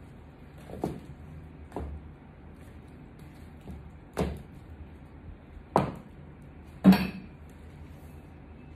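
Stiletto-heeled boots stepping on a tiled floor and onto apples, crushing them underfoot: about five separate sharp knocks, the loudest near the end.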